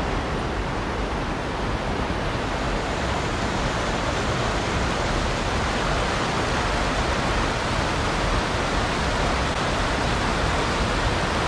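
A small rocky mountain stream rushing over rocks in white-water cascades, a steady, even rush of water.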